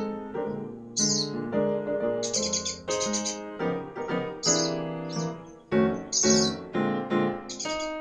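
Gentle piano music with short, high bird chirps recurring every second or so over it.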